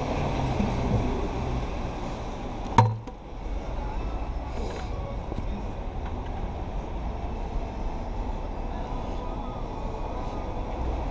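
Street traffic on wet pavement: a steady rumble of cars and tyres, with one sharp knock about three seconds in.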